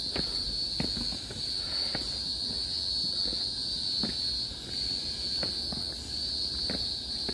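Steady high-pitched drone of forest insects, with irregular soft footsteps going down steps beneath it.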